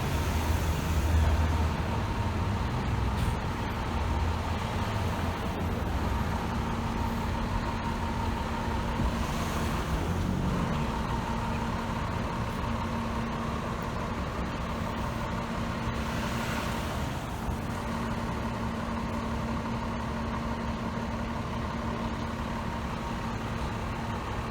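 Steady street traffic with a heavy vehicle's engine running. The engine's low rumble is strongest in the first few seconds, and a steady hum comes in about six seconds in and holds.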